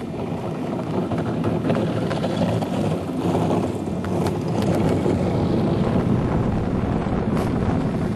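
Class III ice yacht's steel runners running over lake ice at speed: a steady low rushing noise, with a few sharp clicks around the middle and near the end.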